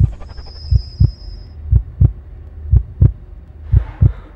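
Heartbeat sound effect: low double thumps, about one pair a second, with a faint high steady tone in the first second.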